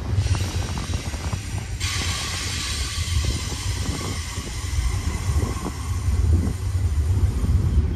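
Freight train cars rolling past close by: a steady low rumble of wheels on rail with irregular clicks and clunks from wheels and couplers. A steady hiss comes in about two seconds in.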